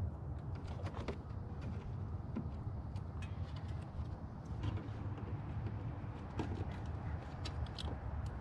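Scattered small plastic clicks and knocks as push clips are pried out of a car's plastic air intake runner with a clip removal tool, over a steady low background rumble.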